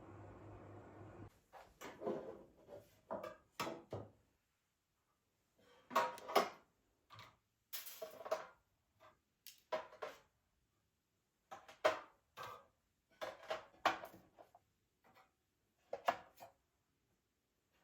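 Dishes and kitchen utensils being handled and set down: a series of short, separate clatters and knocks. A low steady hum cuts off about a second in.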